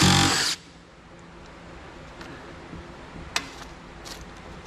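Work noise on a dirty computer's motherboard screws: a loud rasping burst about half a second long at the start, then quiet with a few faint clicks and taps of tool and metal.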